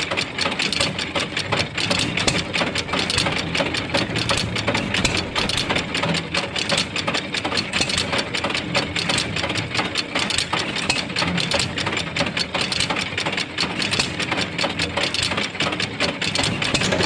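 3/4 HP Bluffton hit-and-miss stationary engine running steadily, driving an Eaton's wooden washing machine, with a fast even clatter of clicks from the running machinery.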